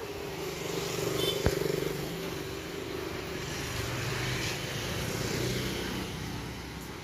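A motor vehicle engine running close by, its pitch shifting as it goes, with a single sharp click about a second and a half in.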